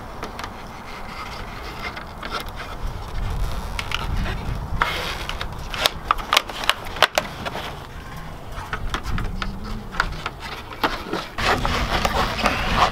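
Chrome grille inserts being handled, pressed and rubbed into place on a truck's plastic grille: scattered light clicks and taps with rubbing, more frequent from about five seconds in, over a low rumble.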